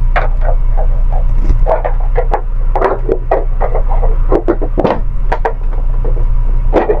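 Plastic cover of a ceiling tube-light fixture being handled and pressed into place: irregular clicks and crackles of plastic, several a second, over a steady low hum.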